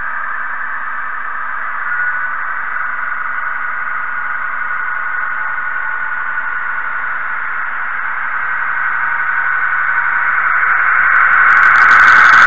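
Narrow-gauge model train running on its track with a steady hissing whir of motor and wheels, growing louder over the last few seconds as it comes up close alongside.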